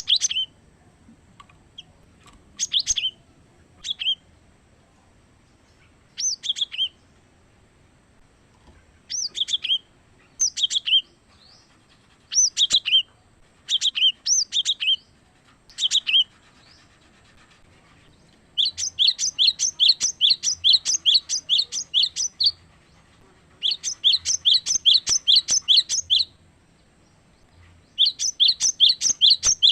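Cinereous tit singing. First come short, high, downslurred two- and three-note phrases every second or two. Then come long, fast runs of the same note repeated about four times a second, in three bursts of a few seconds each.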